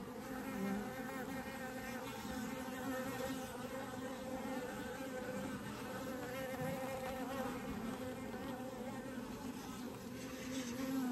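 Honeybee drones buzzing around an open hive, a steady hum with a slightly wavering pitch.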